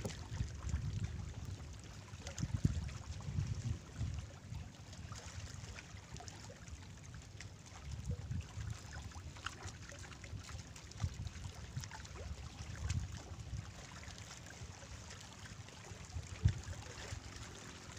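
Seaside ambience on a rock breakwater: gusty wind rumbling on the microphone over water lapping and trickling among the rocks. One short sharp knock near the end.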